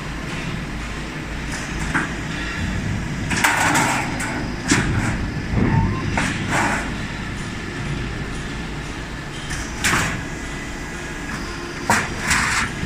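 Automatic sheet-metal duct production line running with a steady hum, broken several times by short, harsh metallic noises as the machine works the sheet.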